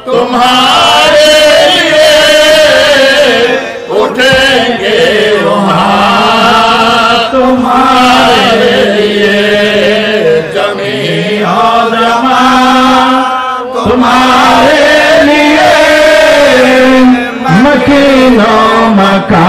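Men's voices chanting a devotional milad song (naat), a long drawn-out melodic line over a steady held low note, with brief breaks between phrases.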